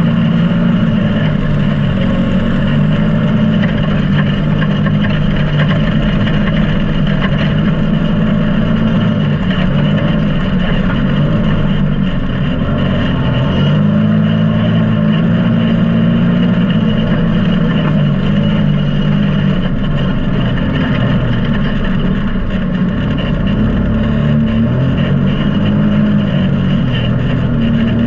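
Can-Am Maverick X3 side-by-side's turbocharged three-cylinder engine running hard as it drives across sand dunes, its pitch holding steady with small rises and dips, under a steady rush of noise from wind and driving.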